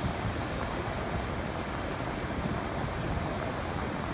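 Steady rumble and hiss from a stationary GO Transit commuter train standing at the platform, with no distinct knocks or changes.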